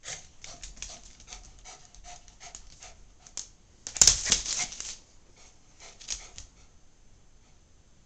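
Small dog at play: a rapid series of short clicking and huffing sounds, with a louder burst about four seconds in and a few more clicks shortly after.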